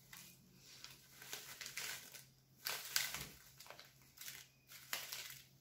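Paper packet of baking soda crinkling and rustling as a small plastic spoon scoops powder out of it, in short irregular bursts, the loudest about three seconds in.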